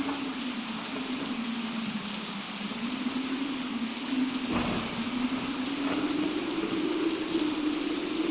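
Recorded storm sound effect: steady rain hiss under a moaning wind tone that sinks, then slowly rises in pitch, with a single crack of thunder about four and a half seconds in.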